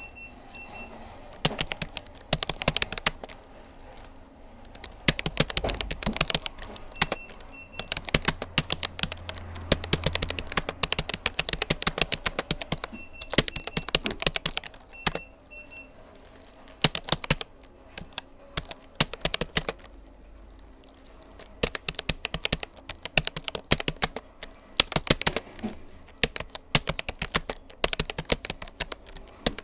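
Typing on a Rapoo computer keyboard: runs of fast key clicks broken by short pauses, with louder strokes now and then.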